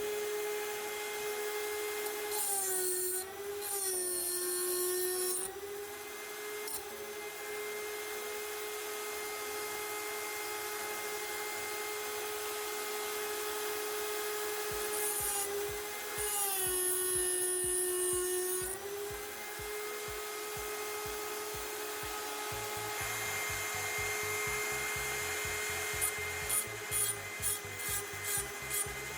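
Small high-speed power tool running steadily. Its pitch sags twice as it bites into material, with a gritty hiss each time. Near the end come quick, even rubbing strokes, about two a second.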